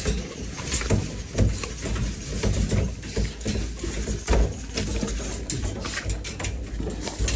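American bully puppies moving and being handled in a pen of wood-shavings bedding: irregular scratching, rustling and clicks with dull low knocks.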